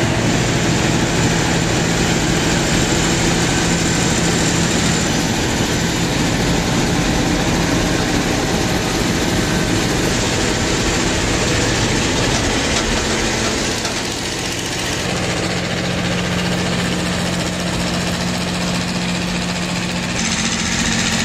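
Heavy tow truck's engine running steadily under load while hauling a very heavy oversized load, with a continuous hum; the sound dips briefly and shifts a little about two-thirds of the way through.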